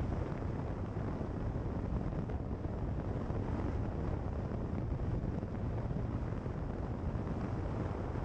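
A car driving steadily along a gravel road, heard from a bonnet-mounted camera: a steady low rumble of tyres and running gear, with wind buffeting the microphone.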